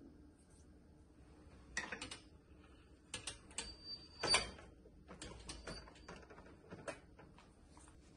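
Metal wire cooling rack with a tart pan on it clinking and knocking against a granite countertop as it is slid aside: a string of short sharp clicks and knocks with a brief metallic ring, loudest about four seconds in.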